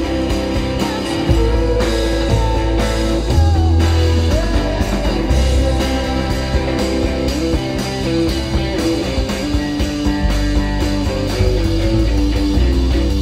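Live rock band playing an instrumental passage: electric guitar over shifting bass notes and a steady drum beat.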